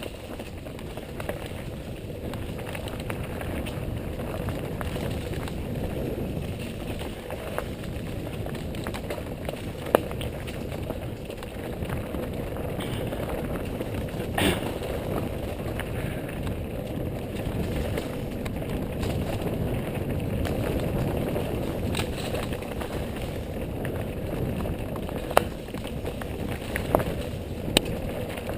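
Mountain bike rolling along a dirt trail: a steady rumble of tyres and wind, broken by a few sharp knocks and clacks as the bike goes over bumps. The loudest knock comes about ten seconds in, and there are several more near the end.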